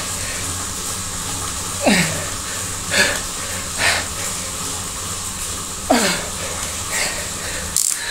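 A man breathing hard in loud forced exhales while sprinting at low cadence in a heavy gear on a Tacx indoor trainer. There are about five exhales, two of them voiced as short falling grunts. A steady low hum from the trainer runs underneath, and there is a sharp click near the end.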